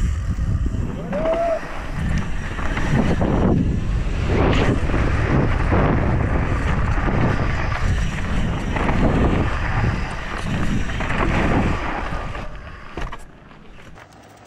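Wind rushing over a helmet camera's microphone, mixed with mountain-bike tyre and frame rattle, as the bike rolls fast down a rocky dirt in-run. The noise falls away sharply about thirteen seconds in.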